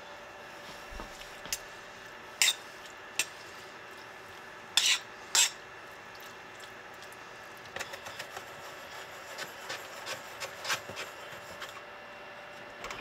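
A metal spoon clinking and scraping against a stainless steel skillet while stirring peppers and peach slices in their liquid: a few sharp clinks in the first half, the loudest about five seconds in, then a run of lighter scrapes in the second half.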